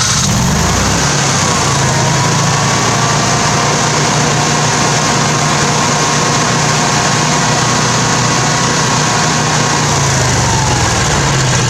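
Generac 20 kW home standby generator's engine running steadily just after starting, on a test run following a fresh oil change. Its pitch slides down near the end.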